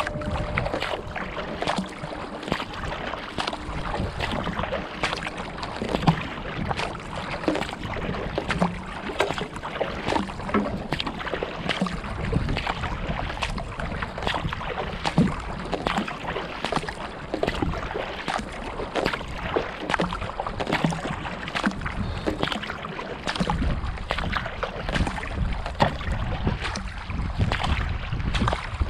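Water splashing and washing along a kayak's hull as it is paddled, with many small irregular drips and splashes close by.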